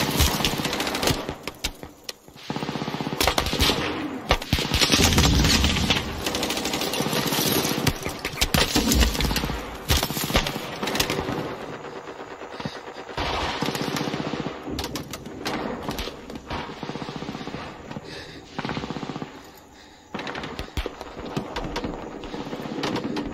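Battle sound effects from a war film: bursts of machine-gun fire mixed with other gunshots, rising and falling in loudness. There is a brief lull about two seconds in and another near the end.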